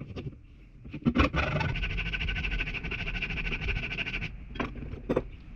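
Hand file rasping across a san mai steel knife blade clamped in a vise. A couple of sharp knocks about a second in, then one long continuous stroke and two short strokes near the end.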